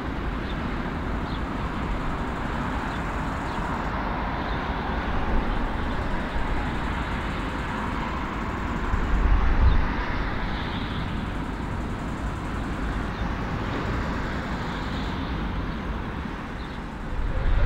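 Airplane noise during a landing: a steady rushing sound over a deep rumble, swelling briefly about nine seconds in.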